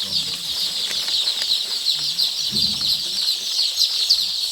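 A large flock of day-old layer chicks peeping continuously, a dense chorus of many short, high, falling chirps.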